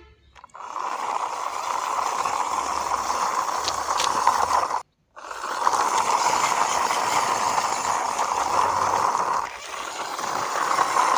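A toy vehicle pushed along by hand, its small plastic wheels rolling with a steady rattling noise. The noise breaks off for a moment near the middle.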